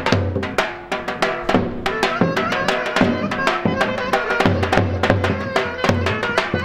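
Live folk music led by a large double-headed drum (davul) beaten with a stick: deep strokes about every second or so, with many quick lighter taps between them, under a sustained melody line.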